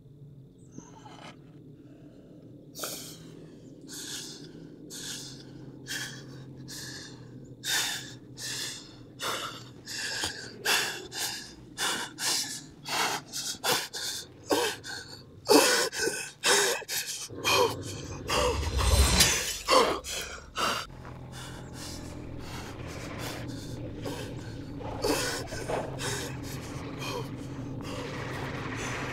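A man gasping and breathing hard in short, sharp breaths, one after another, growing louder toward the middle. A low rumble comes in about two-thirds of the way through.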